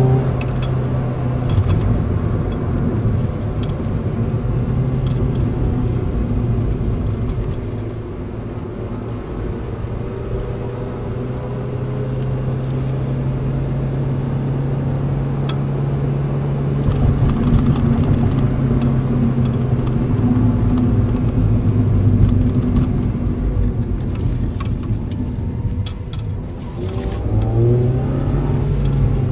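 Cabin sound of a Suzuki Forenza-type compact car on the move: the four-cylinder engine drones at a steady pitch over road and tyre noise. The pitch shifts about halfway through and rises near the end as the car speeds up.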